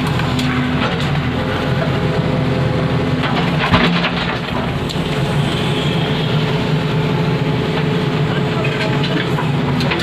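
A JCB digger's diesel engine running steadily under load, heard from inside the cab. About four seconds in there is a short clatter with a knock as the arm works the rubble.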